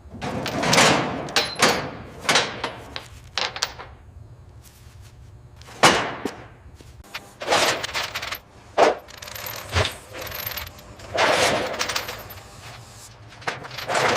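A series of sharp knocks and clanks, about a dozen at uneven intervals, each with a short ringing tail.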